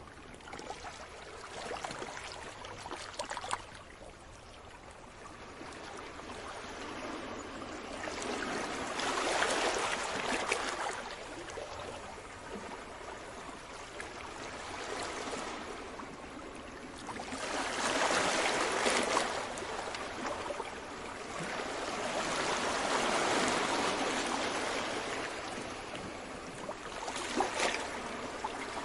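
Small sea waves washing onto the shore, each wash swelling and fading every several seconds, with brief crackling as the water runs back.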